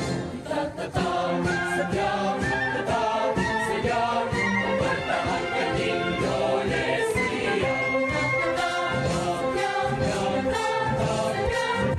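Background music: a choir singing over an orchestral accompaniment.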